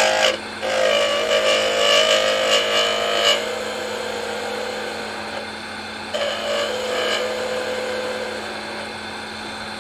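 Wood lathe running with a steady motor hum while a turning tool cuts the spinning wood in two passes, the first lasting about two and a half seconds and a shorter one near the middle. The cuts ring and chatter because the tailstock has been taken away, which brings vibration.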